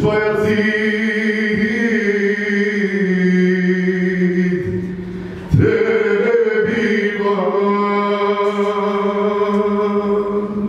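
Male singer holding two long sustained notes, about five seconds each, the second starting about five and a half seconds in, sung into a microphone over musical accompaniment.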